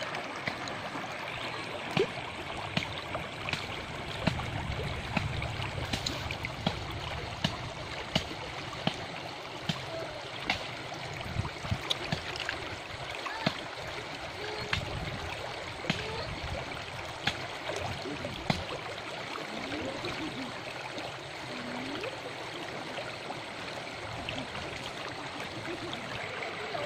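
Shallow river running over stones, a steady rush of water, with sharp clicks about once or twice a second from cooked river snail shells being handled and knocked against a stone.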